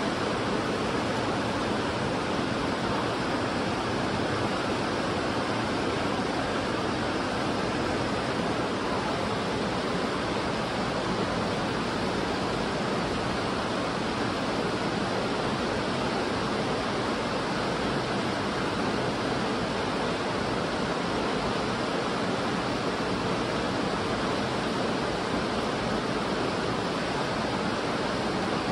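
Steady rush of a fast-flowing river or creek, an even noise that does not change.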